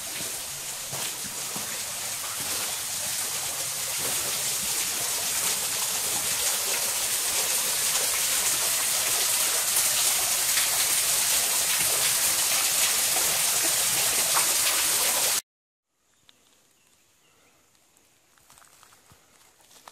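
Steady hiss of falling, splashing water, growing a little louder; it cuts off suddenly about fifteen seconds in, leaving only faint rustling.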